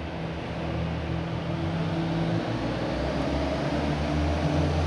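Kawasaki motorcycle engine running as it is ridden inside a large, empty steel hangar. The engine note shifts about halfway through and grows louder toward the end.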